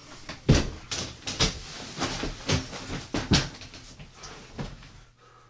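A run of about ten irregular knocks and clattering thumps, the loudest about half a second in and again past three seconds, thinning out and stopping about five seconds in.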